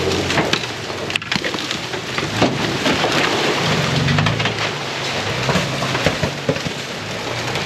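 A Toyota FJ Cruiser crawling past through a shallow muddy creek bed, its tyres crackling and snapping over dry bamboo and branches, with the engine rumbling low underneath.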